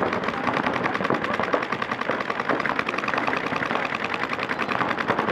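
Paintball markers firing in rapid, overlapping streams from several players at once: a dense, steady run of sharp pops, many a second.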